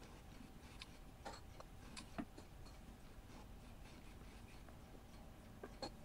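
A parting-insert cutter in a milling-machine quill, worked by hand, shaping a slot in a cast-iron blank: a handful of faint, scattered clicks and scrapes as it shaves the metal, the sharpest just over two seconds in, over a faint steady hum.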